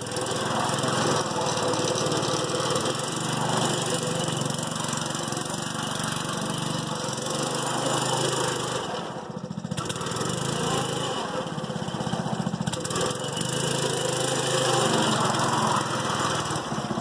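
Small single-cylinder Briggs & Stratton engine, about 8 horsepower, running on a three-wheeler as it is ridden. It revs up and down, drops back about nine seconds in, then picks up again.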